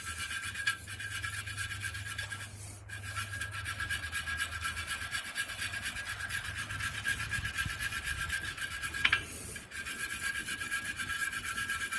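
Brass wire brush scrubbing old thread tape off the threads of a steel pipe nipple in quick back-and-forth strokes, pausing briefly twice.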